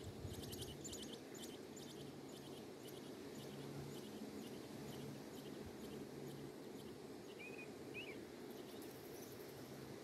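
American robin nestlings begging with faint, rapid high-pitched cheeps that fade out within the first couple of seconds, then two short chirps about two seconds before the end, over a steady low background hum.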